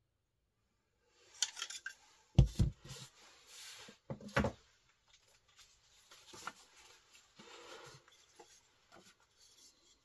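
Folding knives being handled and set down on a mat: light clicks, then two dull thuds about two seconds apart with rubbing between, followed by softer rustling and small taps as a sheet of paper is picked up.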